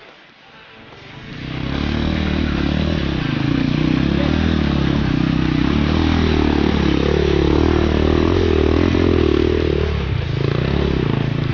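Dirt bike engine running on a rocky enduro trail, fading in over the first second or so, then a steady run with the revs rising and falling.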